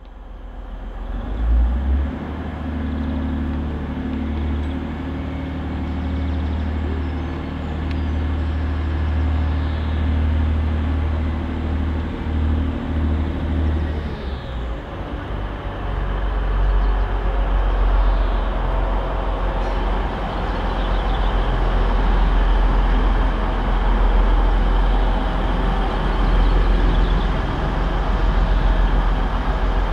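Class 185 diesel multiple unit's Cummins QSK19 diesel engines idling with a steady low hum. About halfway through the engines open up as the train pulls away from the platform, and the running sound grows louder.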